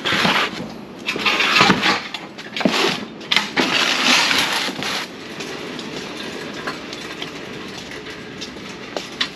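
Metal hand truck clanking and rattling as it is grabbed and moved, with a run of loud clatters and knocks over the first five seconds. After that it gives a quieter, steady rolling noise over the concrete floor, with a few clicks.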